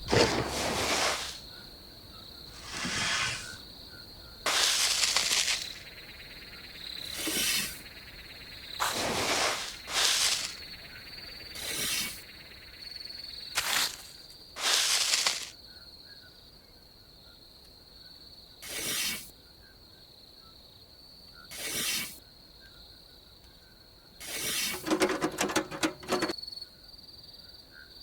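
A steady high-pitched insect drone runs throughout, broken by about a dozen short bursts of scraping or rustling noise, with a quick cluster of them near the end.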